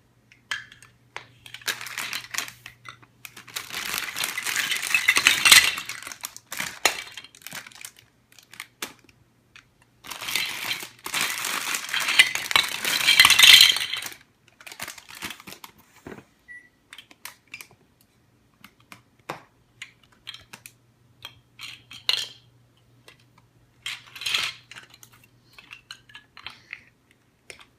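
Loose plastic Lego bricks clattering and rattling as they are poured out and rummaged through, with some crinkling of plastic bags. There are three longer bursts of clattering in the first half, then scattered clicks and short rattles.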